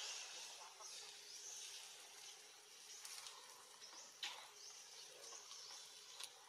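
Faint woodland ambience: a steady high hiss with high-pitched chirping, and two brief clicks about four and six seconds in.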